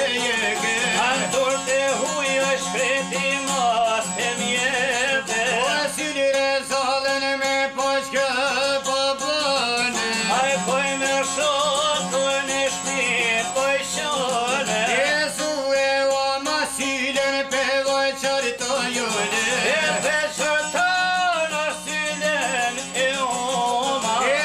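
A male voice singing a folk song with a wavering, ornamented line over plucked long-necked lutes that play steadily throughout.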